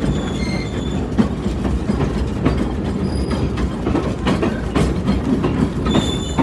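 Train cars rolling along the track: a steady low rumble with irregular clacks from the wheels and rail joints, and short high-pitched wheel squeals now and then.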